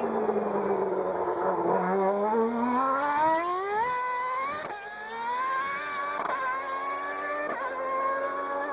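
Ferrari F93A Formula One car's 3.5-litre V12 engine accelerating hard from low speed. The note dips at first, then climbs steeply, breaking and rising again with three quick upshifts about four and a half, six and seven and a half seconds in. It fades as the car pulls away.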